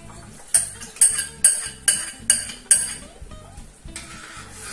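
A spatula knocked sharply against the cookware six times, a little over two strikes a second, shaking off the flour batter as the bowl is scraped out into the pot.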